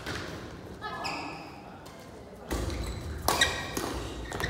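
Badminton rally on an indoor court: shoe squeaks and footfalls on the court floor, with a sharp racket-on-shuttlecock hit a little past three seconds in, echoing in a large hall.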